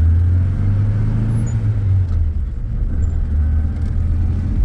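Steady low rumble of a running road vehicle, with no sudden events.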